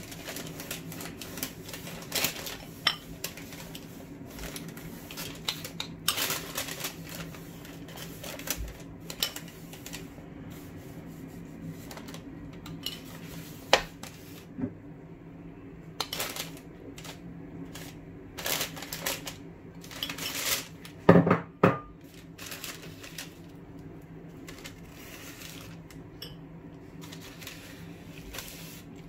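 A metal spoon clinking and scraping against a bowl as an oily chutney paste is spooned out, in scattered light clicks with a louder cluster of knocks about two-thirds of the way through. A steady low hum runs underneath.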